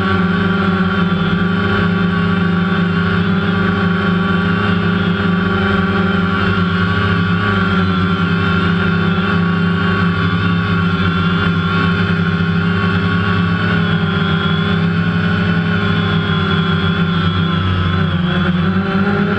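DJI Phantom quadcopter's four electric motors and propellers whining steadily, recorded from the GoPro mounted on the drone itself, with small shifts in pitch as it manoeuvres.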